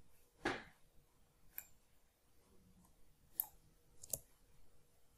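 A few faint, sharp clicks spread over several seconds from a computer mouse and keyboard, as text in a document is selected and deleted.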